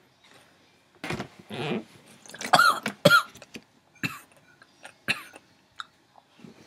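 A boy coughing several times in the first three seconds, set off by the heat of a jalapeño pepper he is eating, followed by a few short faint clicks.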